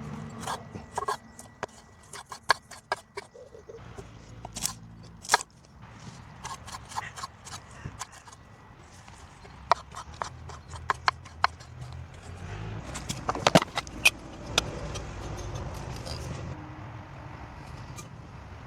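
Camp cooking sounds: irregular sharp clicks, taps and knocks with some scraping, as cooking gear is handled. A low rumble underneath grows louder after about twelve seconds, and the loudest cluster of knocks comes just after that.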